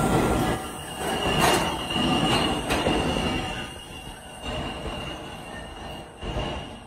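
An R160 subway train pulling away from the platform into the tunnel: steel wheels running on the rails with a steady high squeal and a few sharp knocks. It is loudest over the first few seconds and fades as the train recedes.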